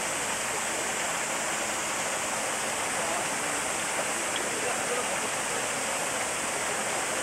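Steady rushing of running water, with faint voices now and then.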